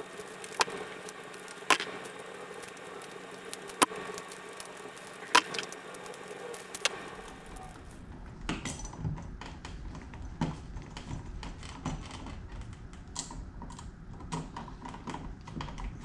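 Small clicks and taps of hand work wiring a light switch: wire loops going onto the terminal screws and the screws being tightened. A few sharp clicks come in the first seven seconds, then a run of quicker, lighter ticks.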